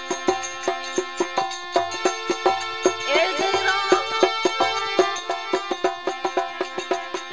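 Instrumental break in a Rajasthani devotional folk bhajan: a dholak plays a quick, steady beat under sustained held chords. About three seconds in, an ornamented, gliding melody line comes in over them and fades by about five seconds.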